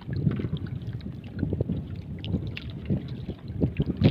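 Wind buffeting the microphone over choppy water lapping and slapping against a small wooden boat's hull, in irregular low gusts and splashes with no engine running.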